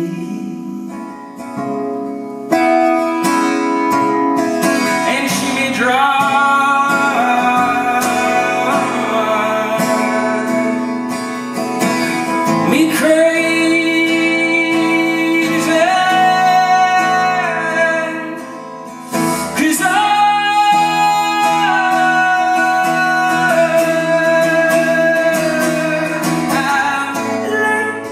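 Acoustic guitar played live under a man's voice singing long, drawn-out notes that bend in pitch. There are brief lulls about two seconds in and again just before the twentieth second.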